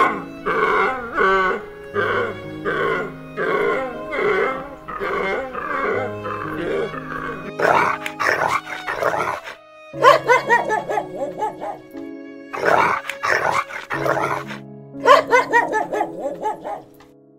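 A dog barking in rapid runs of barks over soft background music. In the first half there is a series of short animal calls, about one a second.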